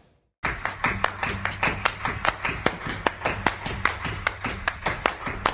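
Background music starting abruptly after a brief cut to silence: a fast, even rhythm of claps, about six a second, over a low steady hum.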